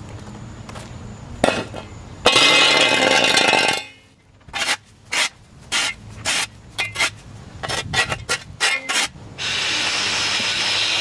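Milwaukee cordless pole edger cutting along a lawn edge in two loud, steady stretches. Between them comes a brief lull, then a run of sharp, irregular knocks and clinks.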